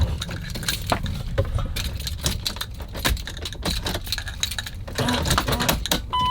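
Keys jangling and clicking as the key is worked in a Mercedes Sprinter van's ignition, which the owner suspects is wearing out. Near the end a steady electronic beep starts.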